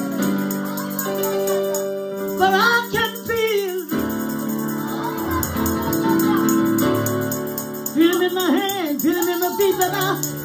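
A woman singing gospel into a microphone over sustained instrumental chords, with sung phrases about two and a half seconds in and again near the end, and the accompaniment holding between them.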